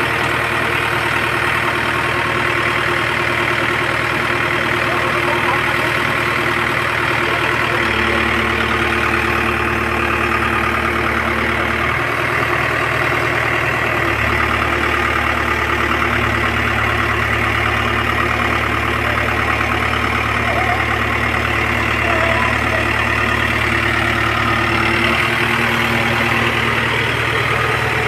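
Backhoe loader's diesel engine idling steadily, its note shifting several times as the bucket arm is worked.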